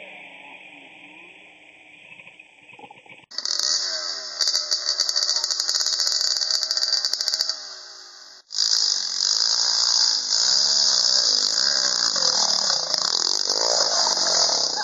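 Dirt bike engine revving hard and unevenly, its pitch wavering, as the downed bike is worked up a steep dirt slope. It is quieter for the first few seconds, cuts out briefly about halfway, then comes back loud.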